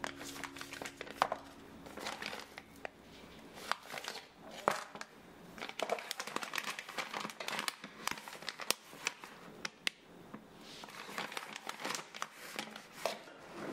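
Plastic tea packets crinkling as they are handled and shifted on a shelf: a fast, irregular run of crackles and rustles.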